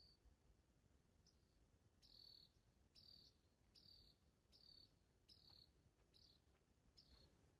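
Faint cricket chirping: short, high chirps repeated at an even pace, a little more than one a second.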